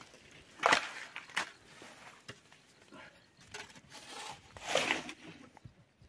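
Shovel scraping and crunching through a sand, gravel and cement mix on the ground, a few separate strokes, the loudest about a second in and another near the end.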